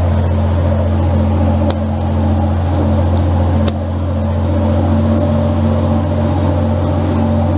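A harbour ferry's diesel engines running steadily under way: a loud, even low drone, with the rush of the propeller wake behind the boat.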